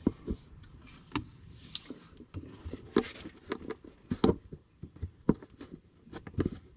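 Irregular light clicks and knocks of hand tools and parts being handled during work in an engine bay, with a brief rustle about two seconds in.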